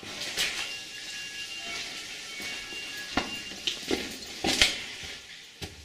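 Steady hiss of running water in a mine tunnel, with a handful of sharp knocks in the second half, the loudest about four and a half seconds in.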